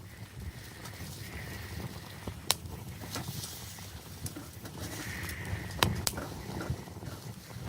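Wood campfire crackling, with scattered sharp pops, the loudest about two and a half seconds in and twice just before six seconds in, over a steady low rumble.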